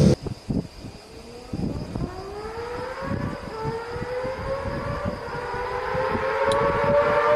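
Honda CBX 1050's air-cooled inline-six engine at high revs, heard from a distance: one high engine note with overtones that climbs slowly in pitch and grows louder over several seconds as the bike accelerates. Uneven low thumps run underneath.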